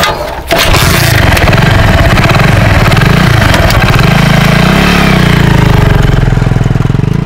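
Small single-cylinder four-stroke engine of a Hero commuter motorcycle, close up. It comes in loudly about half a second in and runs with its pitch rising and falling as the throttle is blipped.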